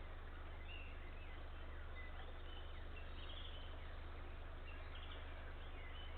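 Faint, scattered songbird chirps, with two short trills about three and five seconds in, over a steady hiss and a constant low hum.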